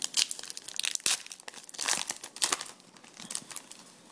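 A foil trading-card pack wrapper being torn open and crinkled by hand: a run of crackly rustles and sharp tearing crackles that dies down about three and a half seconds in.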